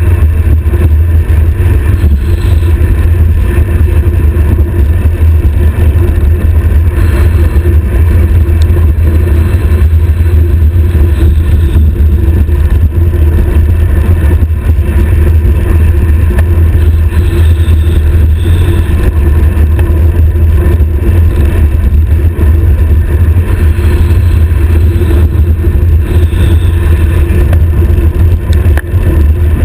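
Wind buffeting the microphone of a stem-mounted GoPro on a road bicycle descending at high speed: a loud, steady low rumble.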